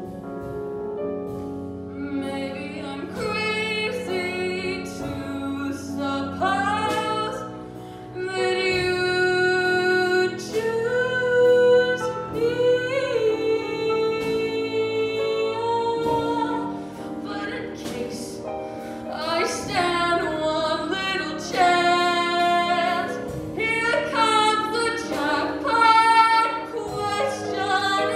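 A female solo singer singing a slow song into a microphone, her voice wavering on long held notes, over accompaniment from a small instrumental band.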